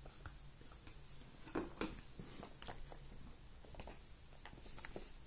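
Faint scattered scrapes, rubs and light taps of a small paperboard box being handled, as its inner tray is worked out of the sleeve.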